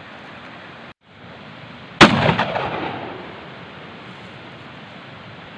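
A single shot from a 12-bore semi-automatic shotgun, one sharp blast about two seconds in, with an echoing tail that fades over about a second.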